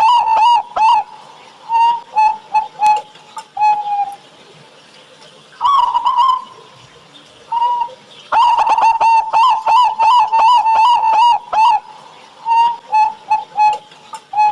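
Zebra dove (perkutut) cooing song: fast runs of rapid staccato coo notes alternating with slower single notes. The longest run lasts about three and a half seconds, and the song ends on a drawn-out falling note.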